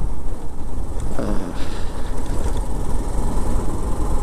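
Motorcycle riding at road speed: wind rushes and rumbles over the microphone, with the bike's engine running underneath. An oncoming lorry goes past about a second in.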